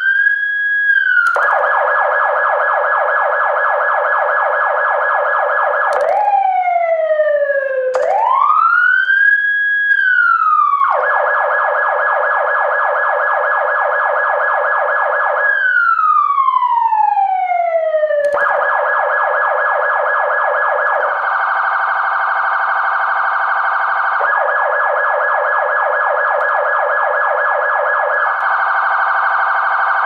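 Electronic emergency-vehicle siren switching between its tones: slow wails that rise, hold and fall, alternating with long stretches of a fast yelp. Twice in the second half it changes to a different rapid warbling tone for a few seconds.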